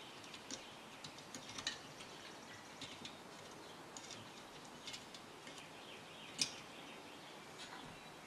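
Faint, scattered small clicks and ticks of a screwdriver and tweezers working the metal clips that hold the dial glass in a radio's steel front panel, with one sharper click about six seconds in.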